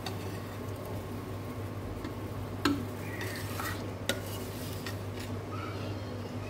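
Light clinking and scraping of a utensil against a cooking pot as boiled eggs are laid onto a layer of rice for egg dum biryani, with two sharper clinks about two and a half and four seconds in. A steady low hum sounds throughout.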